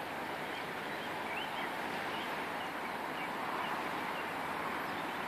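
Fast-flowing river rushing steadily, with a few faint bird chirps in the first half.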